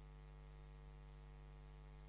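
Near silence: a faint, steady electrical mains hum with a light hiss underneath.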